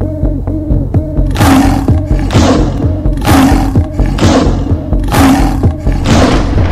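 Electronic music with a fast pulsing beat. About a second in, loud hissing swells start, one roughly every second, each fading out.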